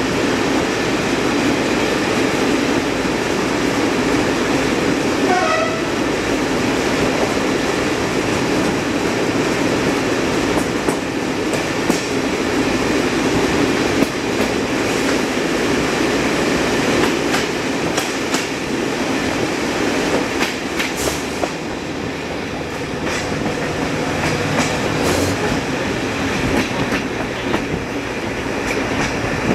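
X 2800 diesel railcar running at speed inside a tunnel: a steady engine and wheel rumble with clicks of the wheels over the rails. The railcar comes out of the tunnel near the end.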